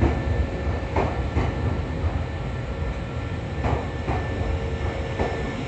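Nankai Line electric commuter train rolling along the platform: a steady low rumble with pairs of clacks as its wheels cross rail joints.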